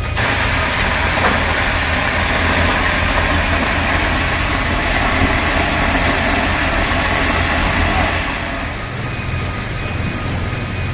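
High-pressure water jet blasting a ship's hull bottom to wash off marine growth: a loud, steady hiss and splash over a low engine drone. The spray sound drops off about eight seconds in, leaving the drone.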